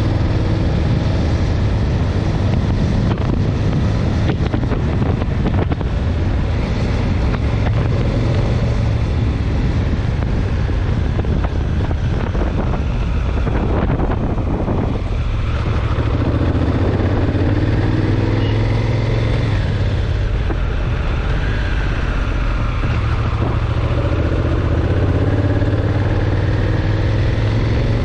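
Motorcycle engine running on the move, with wind rushing across the handlebar-mounted camera's microphone. The engine pitch climbs several times in the second half as the bike accelerates.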